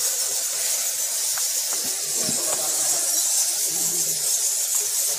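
Steady high hiss, with faint voices in the background.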